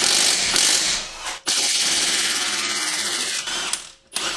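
Cordless impact wrench hammering on the 22 mm bolts that hold the lower end of a rear strut to the hub, breaking them loose. It runs in two bursts, a short one and then a longer one after a brief pause.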